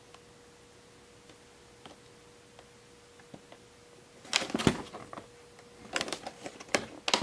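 A cardboard toy box with a clear plastic window being handled and turned. At first there are only a few faint ticks; from about four seconds in, the plastic window and cardboard crackle and click in short clusters.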